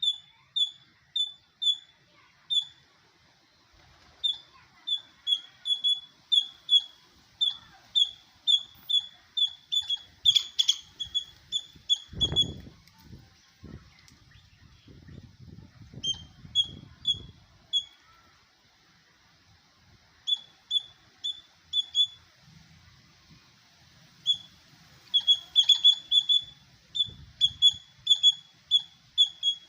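Squirrel chirping: a long series of short, sharp, high-pitched calls, two or three a second, broken by a few short pauses.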